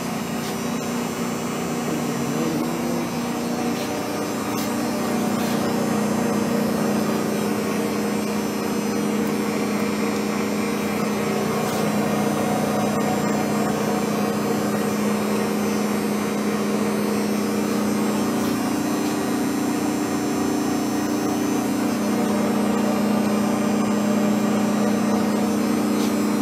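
Leblond Regal engine lathe running under its three-phase electric motor, giving a steady machine hum. The hum shifts in pitch a few seconds in, then holds steady.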